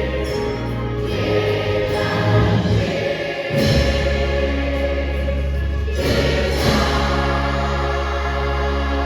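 Choir singing sustained chords over instrumental accompaniment, with a change of harmony about three and a half seconds in and again about six seconds in.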